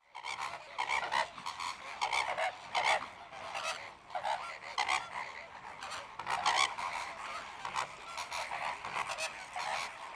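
A group of birds calling, short calls following each other irregularly several times a second and often overlapping.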